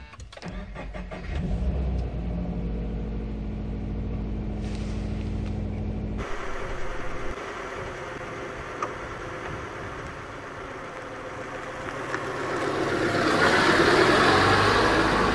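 Toyota 86's flat-four boxer engine starts about a second in and settles into a steady idle. After a sudden cut, the car drives up and over at ground level, and its engine and tyre noise swell to the loudest point near the end.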